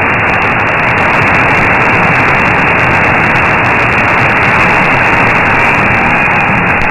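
Steady static hiss from a shortwave receiver in AM mode, cut off sharply above the receiver's audio bandwidth. The 15476 kHz broadcast is weak, around S3 to S5, and lies buried in the noise.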